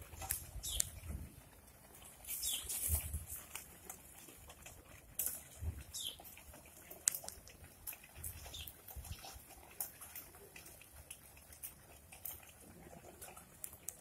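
Flock of domestic pigeons feeding on the ground: scattered pecking clicks and shuffling, with occasional wing flaps.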